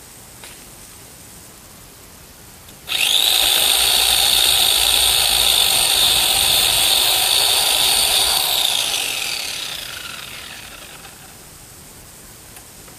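Electric chainsaw switched on with a sudden high-pitched motor whine, running at a steady full speed for about five seconds, then winding down with falling pitch as the trigger is released.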